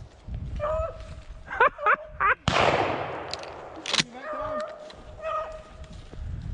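A rabbit hound baying on the trail in repeated held notes, with a few sharp rising yelps. A shotgun shot cracks about two and a half seconds in and rolls away over about a second, and a second sharp shot follows about four seconds in.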